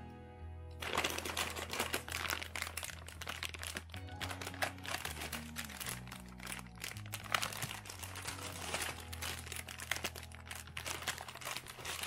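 Background music with a steady bass line, over the crinkling of plastic instant-noodle and snack packets being handled and lifted out of a box, starting about a second in.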